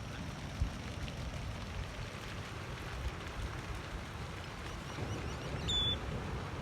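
Steady rush of surf and water with wind buffeting the microphone. A short run of faint high bird chirps and one brief high call come a little before the end.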